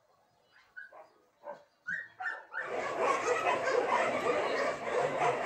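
Puppies yipping: about five short high-pitched yelps a fraction of a second apart, then about halfway a much louder, dense continuous noise sets in suddenly.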